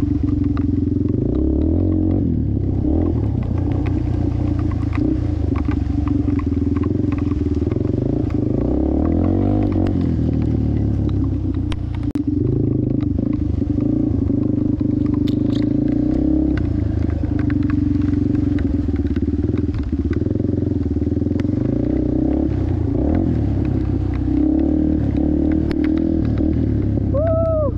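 Yamaha TT-R230's air-cooled single-cylinder four-stroke engine running under throttle while riding a muddy trail, easing off briefly about twelve seconds in, with scattered clicks and knocks throughout. A brief rising-and-falling tone is heard near the end.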